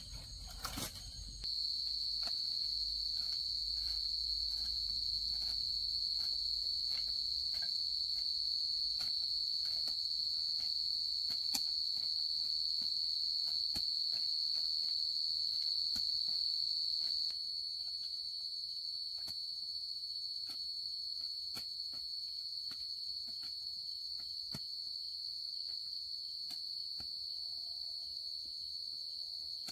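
Steady high-pitched insect chorus, with faint scattered ticks; it drops a little in level about two-thirds of the way through.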